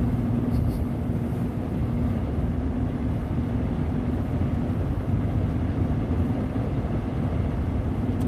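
Steady road and engine rumble heard from inside a car driving on a snow-packed road, with a low hum that is strongest for the first couple of seconds and fainter after.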